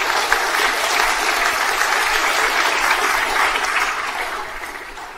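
Audience applauding, fading out over the last second or so.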